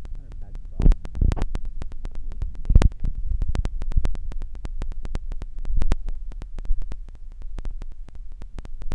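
Wind buffeting the microphone: uneven low rumbling gusts with many sharp crackles, the strongest about a second in and again just before three seconds.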